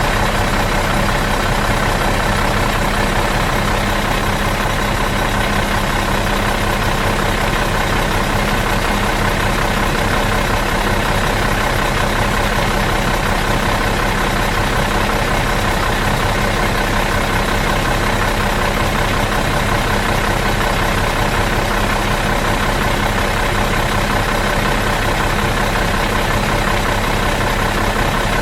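Bus diesel engine idling out of gear, a steady, even hum with no change in speed.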